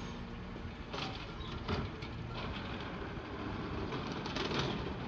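Automated side-loader garbage truck running at the curb, its engine giving a steady low rumble while the lifting arm handles waste carts. Several metallic clanks and knocks come about a second in, just after, and again near the end.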